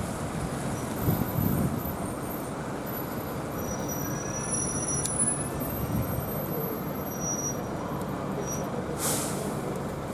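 Single-deck bus pulling in to a stop: engine running and tyres on the wet road, then a short hiss of air from the air brakes about nine seconds in.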